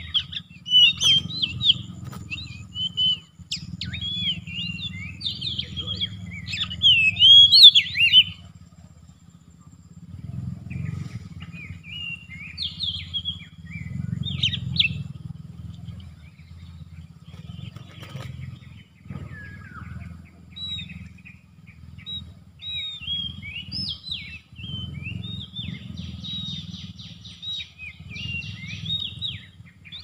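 Oriental magpie-robin (kacer) singing: a varied run of whistled and scratchy phrases in bursts, loudest and densest in the first eight seconds. A steady low rumble sits underneath.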